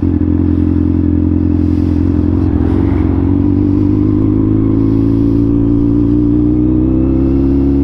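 Motorcycle engine idling steadily, its pitch creeping up slightly over the last few seconds.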